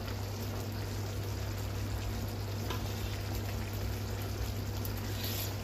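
Thick cream sauce with beef and mushrooms simmering on low heat in a frying pan, a steady bubbling hiss, over a constant low hum.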